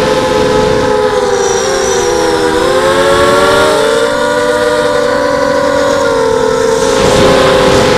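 Racing quadcopter's four brushless motors (RCTimer 1806 2300kv) spinning 5x3 propellers in flight, heard up close from the onboard camera: a loud whine of several close pitches that waver up and down with the throttle, dipping about two seconds in and rising again near four, over a rush of wind noise.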